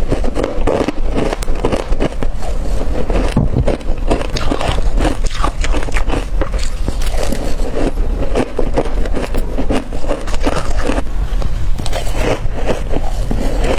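Crushed ice being bitten and crunched close to the microphone: a dense, unbroken run of irregular crackling crunches.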